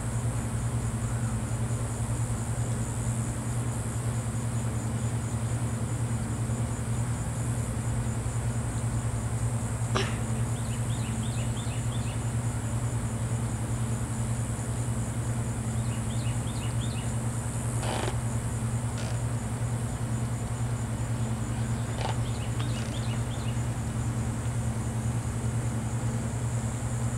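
A steady low mechanical hum with a constant high hiss above it. A few sharp clicks and three short runs of quick chirping squeaks break in partway through.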